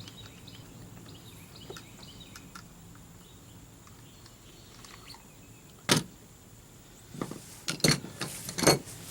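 Sharp knocks and clatters of hard parts being handled as the extended handle is worked off a trolling motor's tiller: one knock about six seconds in, then a quick cluster of four or five near the end.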